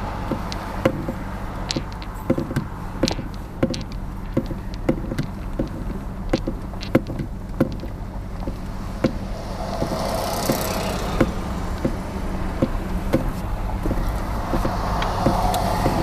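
A car driving, heard from inside: a steady low drone of engine and road, with frequent small clicks and ticks. Twice the noise swells for a few seconds, about two-thirds of the way in and again near the end.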